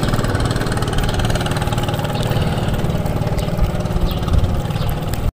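An engine running steadily at an even pitch, a constant low hum; it cuts off suddenly near the end.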